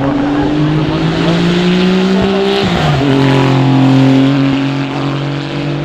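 Car engine accelerating hard: its pitch climbs steadily, drops sharply about two and a half seconds in at an upshift, then climbs again.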